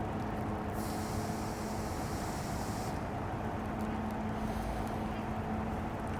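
Street traffic: a vehicle engine running steadily with a low rumble and a constant hum, with a high hiss for about two seconds, starting about a second in.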